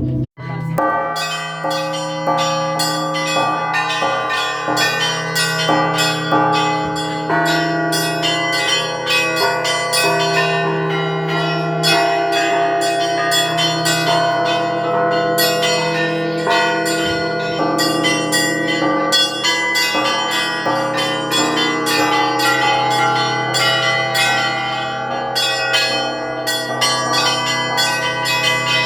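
Orthodox church bells rung by hand in a festive peal: quick strikes on the smaller bells over the long ringing tones of the larger bells, several strikes a second.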